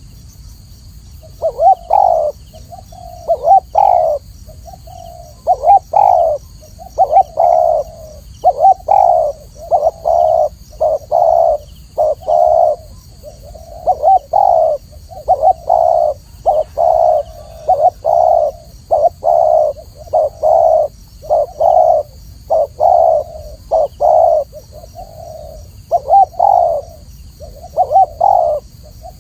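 Spotted dove (Spilopelia chinensis) cooing: a long run of short coo notes in phrases of two or three, with brief pauses between phrases.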